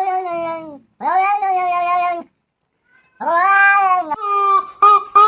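Cat yowling: three long, drawn-out meows, then near the end a broken, stuttering call chopped into quick short pulses.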